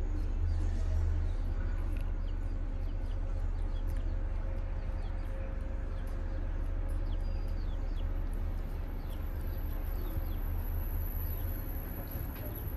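Background ambience: a steady low hum with faint, short, high chirps scattered throughout.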